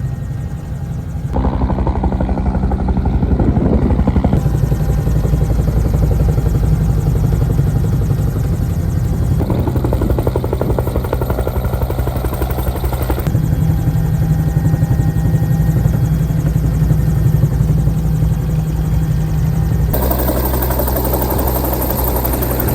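Twin-engine helicopter in flight, heard from inside the cabin: steady turbine and rotor noise with a fast, even rotor chop. The tone and loudness change abruptly a few times.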